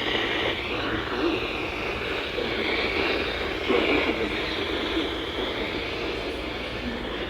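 Weather radio receiver on a weak signal, giving a steady static hiss cut off above about 4 kHz.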